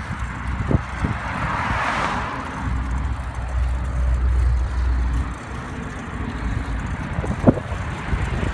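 Wind rumbling on the microphone and road noise while riding a bicycle, with a hiss that swells and fades about two seconds in and a heavier low wind rumble for a few seconds after it.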